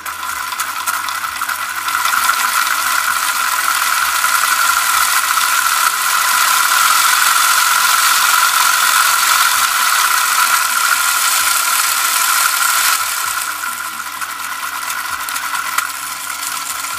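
Cordless drill running steadily, spinning the crankshaft of a 3D-printed plastic V8 engine model so its pistons run continuously, with a mechanical rattle from the moving parts. It gets louder about two seconds in and eases off a little after about thirteen seconds.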